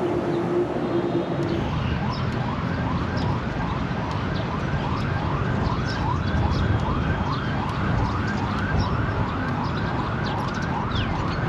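Emergency-vehicle siren in yelp mode, a fast run of rising wails about two or three a second that starts about two seconds in, over a steady rumble of city traffic. Short high chirps sound here and there above it.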